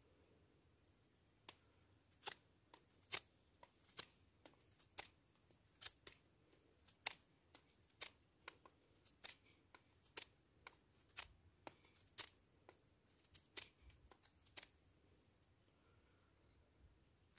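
Blade cutting into wood: a run of short, sharp cuts, about two a second, starting about one and a half seconds in and stopping a few seconds before the end.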